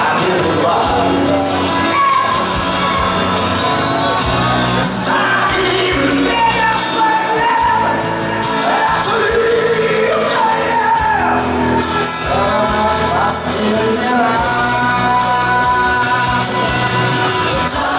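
Male vocalist singing live over a full pop-rock band.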